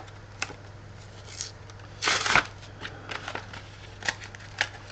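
Pokémon card blister pack being handled and opened: scattered crinkles and clicks of plastic and card packaging, with one louder rustle about two seconds in.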